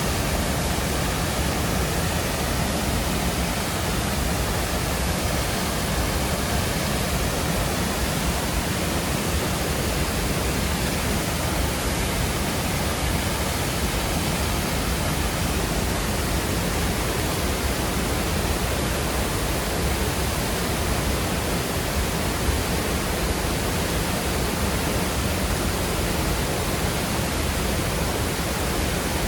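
Waterfall pouring into a fast-flowing rocky creek: a steady, even rush of water.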